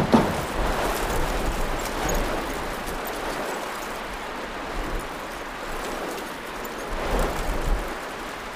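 Steady rush of a heavy rain and hail storm with wind rumbling on the microphone, after one sharp hailstone strike right at the start.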